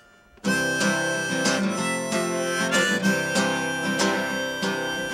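Harmonica and strummed acoustic guitar playing together, starting abruptly about half a second in after a brief silence.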